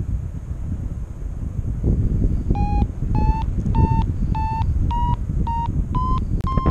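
Paragliding variometer sounding its climb tone: short beeps about twice a second starting a couple of seconds in, their pitch creeping slowly higher, the sign that the glider is climbing in lift. Wind rushes over the microphone underneath.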